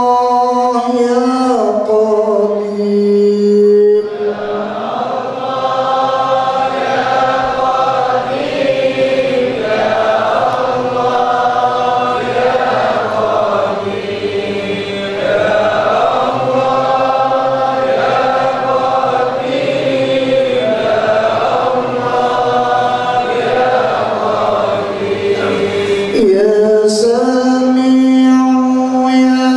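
Men chanting dzikir together over a microphone: a slow, melodic recitation with long held notes. A single lead voice stands out more clearly in the first few seconds and again near the end.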